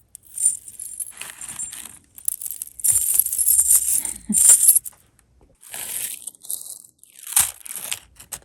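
Metal costume jewelry clinking and jangling as pieces are sorted through by hand, in several bursts, loudest about three to four and a half seconds in.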